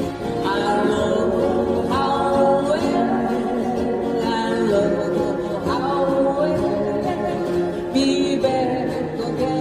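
Live pop song: singing over acoustic guitar accompaniment.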